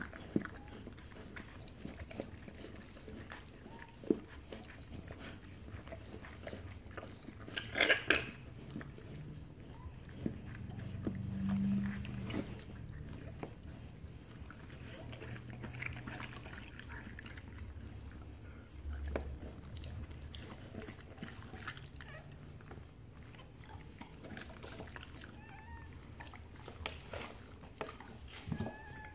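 German shepherd–boxer mix mother dog licking and mouthing her newborn puppy: wet, irregular clicking and smacking sounds, with a louder cluster about eight seconds in.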